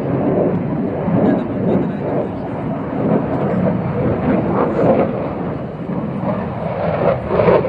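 Loud rumble of a military jet aircraft flying an airshow display pass.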